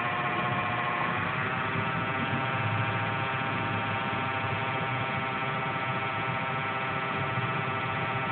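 Small DC motor spinning at about 11,000 RPM, a steady whine with many overtones. Its pitch shifts slightly about a second in as the speed settles.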